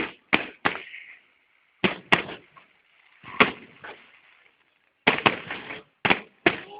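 Fireworks salute: a run of sharp bangs from shells bursting at uneven intervals, some in quick succession, several trailing off in a short hiss.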